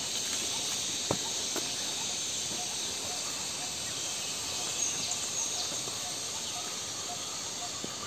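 A steady, high insect drone, with faint scattered whistled notes of a Malabar whistling thrush singing.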